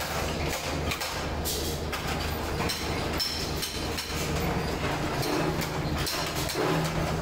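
Electric spot-welding machine welding a steel motorcycle mudguard: a steady electrical hum that swells into a louder buzz in spells, growing more frequent in the last couple of seconds, with sharp metallic clacks as the steel is moved under the electrodes.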